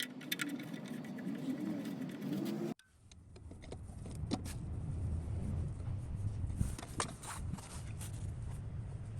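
Light metallic clinks and rattles of tools and parts being handled, over a low steady rumble. The sound drops out abruptly about three seconds in, then returns.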